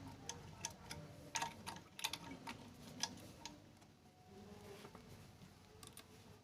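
Scattered light clicks and taps from a sewing machine's metal mechanism being handled and adjusted during repair, irregularly spaced.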